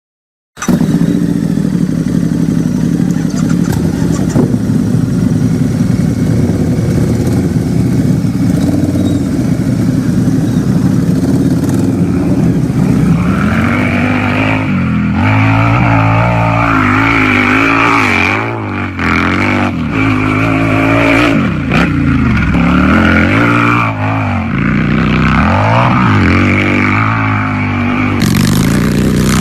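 Harley-Davidson V-twin motorcycle engine idling steadily, then from about halfway in revved again and again, the pitch rising and falling with each blip of the throttle.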